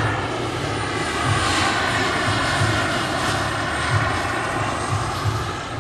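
Turbine engine of a radio-controlled Mil Mi-24 scale model helicopter whining steadily in flight, its pitch bending gently, over a low pulsing throb a few times a second.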